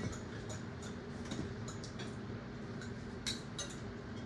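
Scattered light clicks and clinks of eating utensils against plates and containers during a meal, irregular, the sharpest a little over three seconds in, over a low background murmur.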